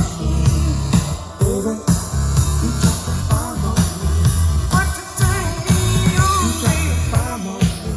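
A rock/pop song with a singing voice and a heavy bass beat, played loud through a Sony LBT-XB44 mini hi-fi system's speakers in a sound test.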